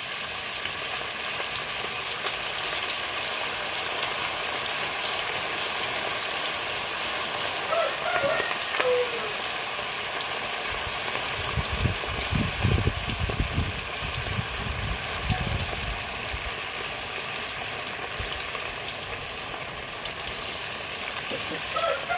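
Masala-marinated fish frying in hot oil: a steady, dense sizzle, with a few low dull thumps about halfway through.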